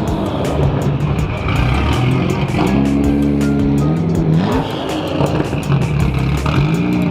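Car engines running and revving, their pitch climbing twice in the latter half, with background music that has a fast steady beat.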